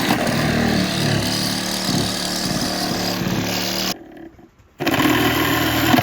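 A handheld power drill/driver running in long steady bursts, taking the deck apart by backing out screws. It runs about four seconds, stops, and starts again about a second later.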